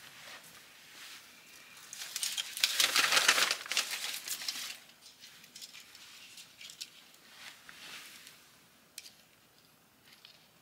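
Dry rustling and crinkling of a large pine cone being handled, its woody scales scraping. It is loudest for about two and a half seconds near the start, then softer rustles and a few small clicks follow.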